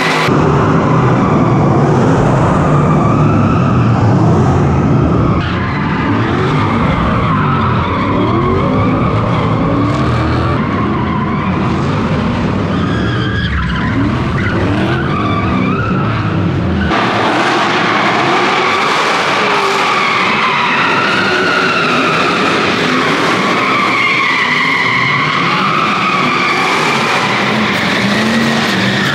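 Drift cars sliding, engines revving up and down over a steady screech of skidding tyres. The sound changes abruptly twice, about five and seventeen seconds in.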